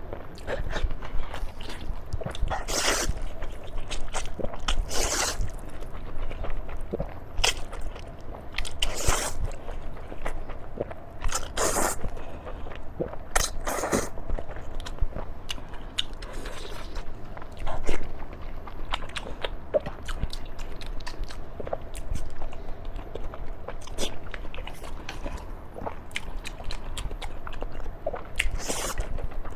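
A person chewing and biting into steamed pork close to the microphone: frequent wet mouth clicks, with a few louder, longer bursts of chewing at irregular intervals.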